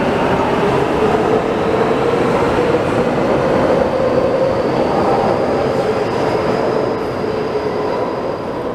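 Taipei Metro train pulling out of an underground station into the tunnel: a steady rushing rumble of wheels on rails with a faint high whine rising slightly as it picks up speed. It fades over the last couple of seconds as the last car enters the tunnel.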